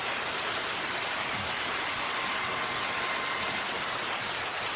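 Steady hiss of the recording's background noise in a pause in the speech, with a faint thin tone heard briefly about halfway through.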